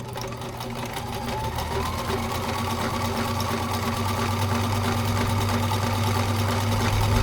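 Vintage all-metal Kenmore sewing machine running steadily, stitching a zigzag. The motor hum rises slightly in pitch about a second and a half in, and the machine grows gradually louder as it picks up speed.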